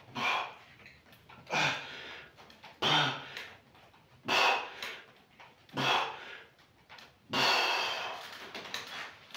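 A man breathing out forcefully in time with the repetitions of a one-arm lying dumbbell triceps extension. Five short, sharp breaths come about a second and a half apart, then a longer breath out about seven seconds in.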